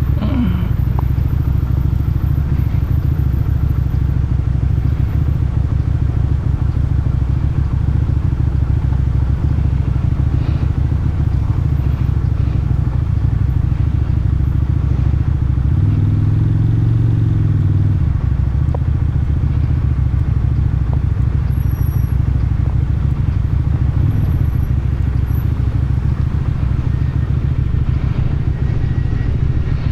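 Motorcycle engine running steadily under way. About sixteen seconds in, a pitched tone rises and falls for about two seconds.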